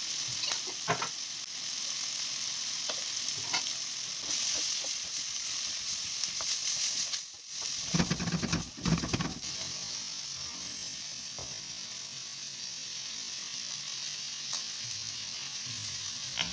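Beef, onions and green peppers sizzling in a wok, a steady hiss. About eight seconds in, a wooden spatula stirs the mix, knocking and scraping against the pan several times, and the sizzling carries on.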